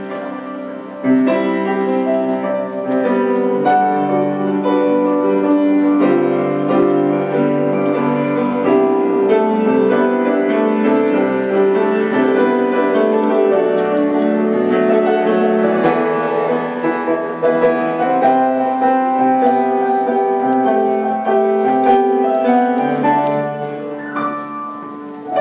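Keyboard instrument playing a slow classical piece: held chords with a melody above.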